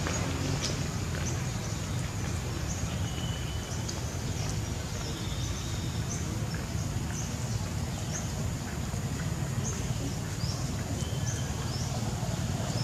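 Outdoor woodland ambience: short, high, falling bird chirps repeated irregularly over a steady low rumble.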